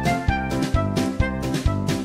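Upbeat, playful instrumental background music with a bouncy beat about twice a second.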